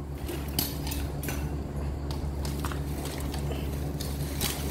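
A few light knocks and handling clicks from tools being handled, over a steady low background hum.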